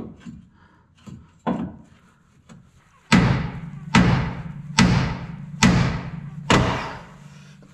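Long-handled hammer striking the steel plow mount under a pickup's front end. A couple of lighter knocks come first, then five heavy blows a little under a second apart, each ringing on after the hit.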